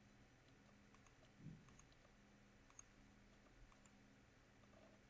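Near silence: room tone with a faint low hum and a few faint, scattered computer mouse clicks.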